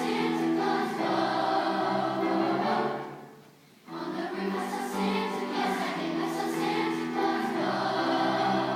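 Middle school choir singing in parts, the phrase breaking off about three seconds in for a brief pause before the voices come back in.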